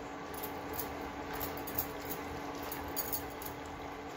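A silicone spatula stirring small whole fish through a thick, wet rice-and-spice paste in a bowl: soft squelching with irregular light clicks, over a faint steady hum.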